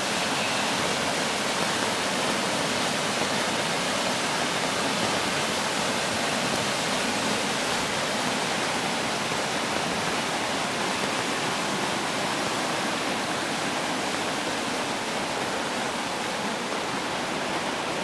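Storm-swollen creek in flood, fast, turbulent water rushing and churning past a concrete bridge wall as a steady, unbroken wash of noise. The flow is swollen by about 11 inches of rain in under a week.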